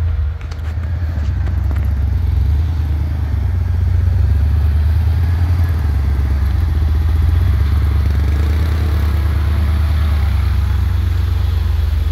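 Ford Bronco II's engine running at low speed, a loud, steady low rumble that dips for a moment about half a second in, then picks up and holds.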